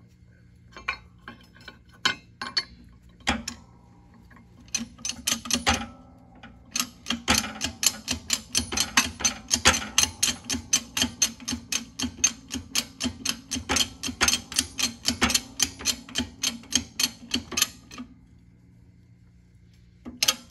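Rapid metal-on-metal clicking, about four to five clicks a second for some ten seconds after a few scattered clicks: a flat steel bar, pressed down by hand through a socket, rocking and clacking on a warped oil pump cover as it is checked for flatness.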